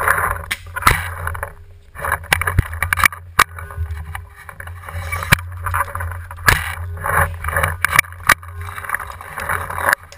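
Handling and movement noise on a bow-mounted camera carried through woods: scuffing and rustling in uneven bursts over a steady low rumble, with many sharp clicks and knocks.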